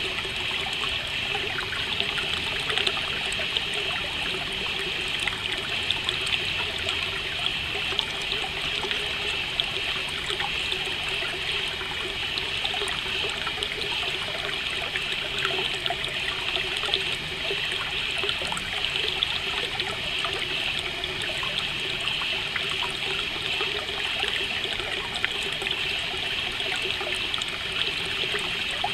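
Steady trickling and running water of a small stream, unchanging throughout.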